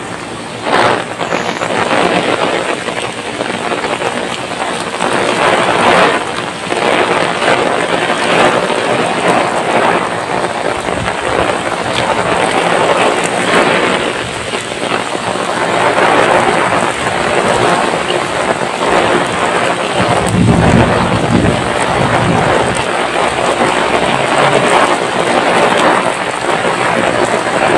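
Heavy rain pouring onto a paved road, a dense steady hiss. A deeper low rumble swells for a couple of seconds about twenty seconds in.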